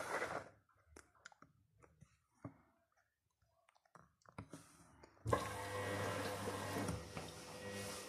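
LG WD-80490S front-loading washing machine in its wash phase: the drum tumbling wet laundry in water stops about half a second in, leaving a pause with only faint clicks, then starts turning again about five seconds in.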